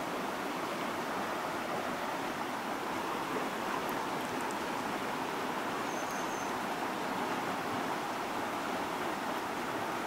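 Shallow mountain stream flowing over rocks: a steady rush of water, with a few faint high chirps about six seconds in.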